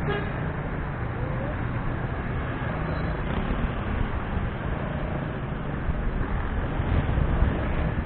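Steady road traffic noise, a low rumble of passing vehicles, growing a little louder near the end.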